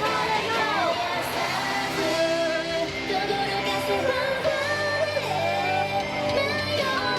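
Female J-pop idol group singing live over a pop backing track, with sustained melodic vocal lines over a steady beat and bass.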